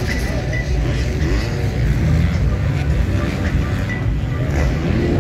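Motocross bikes racing, their engines revving up and down.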